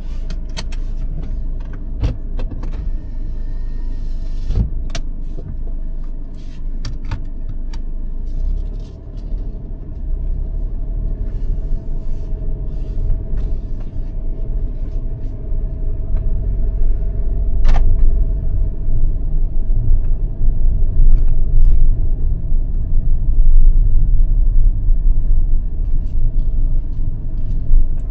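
A car driving, with a steady low rumble of engine and road noise that grows louder about halfway through, and scattered clicks and knocks.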